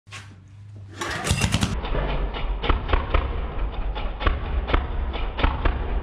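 Small air-cooled diesel engine on a homemade mini bike starting up: it catches with a loud burst about a second in, then runs with a low rumble and uneven knocking beats about three a second.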